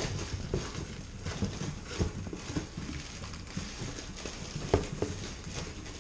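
Rummaging inside a cardboard shipping box: irregular knocks, scrapes and rustling of cardboard and packed items, with one sharper knock about five seconds in.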